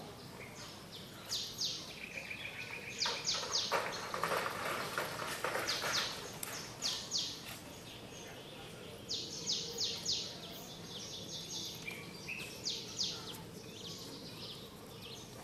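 Outdoor ambience of birds calling: short, high chirps repeated in quick clusters of two to four, with a brief buzzy trill about two seconds in and a scratchy noise around four to six seconds in.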